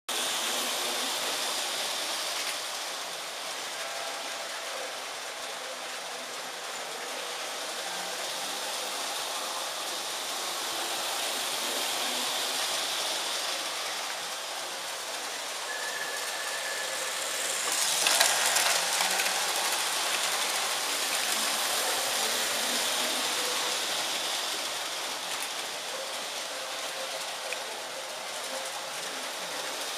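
Lionel O-gauge toy trains running on three-rail track: a steady running whir, rising to a louder rush for about a second some eighteen seconds in.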